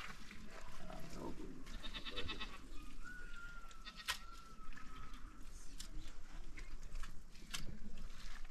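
Livestock bleating, with a drawn-out call about three seconds in and a few sharp clicks.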